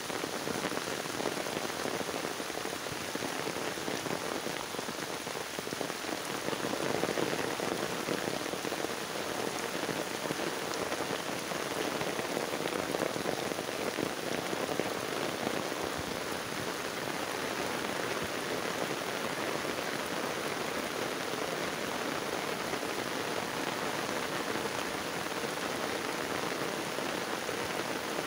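Heavy rain pouring steadily onto open water and flooded fields, a dense even patter of drops that does not let up.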